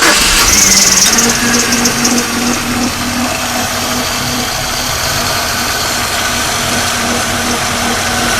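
2002 Oldsmobile Alero engine running steadily, with a steady hum and a high-pitched rushing noise from the front accessory drive. The noise eases after about two and a half seconds. The owner takes the sound for an alternator bearing going bad.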